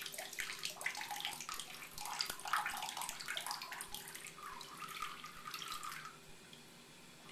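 Water trickling and splashing as it drains through the holes of a plastic toy boat held over a toddler's head into the bathwater, dying down about six seconds in.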